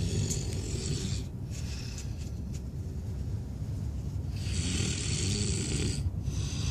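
A man snoring in deep sleep: a long rasping snore at the start, another about four and a half seconds in, and a third beginning near the end, over a steady low rumble.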